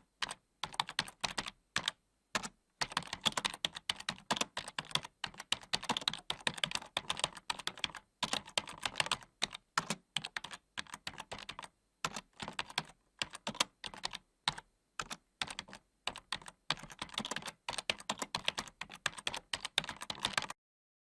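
Computer keyboard being typed on at a steady fast pace, the keystrokes coming in quick runs broken by brief pauses. The typing stops suddenly shortly before the end.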